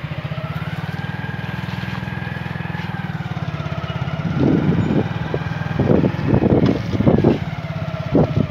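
A vehicle engine running close by with a steady, finely pulsing low hum; from about halfway through, irregular louder surges break in over it.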